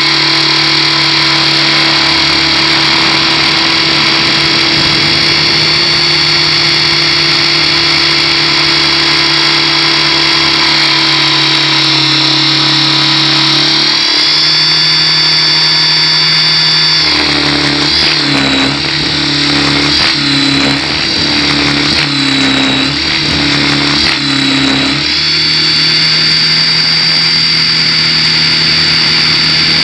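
Align T-Rex 600 Pro radio-controlled helicopter heard from on board in flight: a steady high whine over a lower rotor hum. From about 17 to 25 seconds in, the pitch dips and recovers repeatedly during manoeuvres, then settles steady again.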